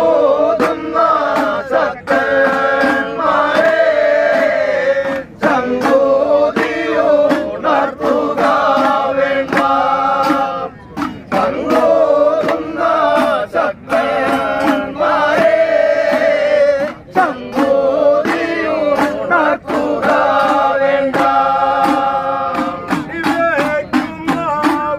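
A group of men singing an Ayyappa devotional bhajan together, accompanied by small hand-held hourglass drums struck in a steady rhythm.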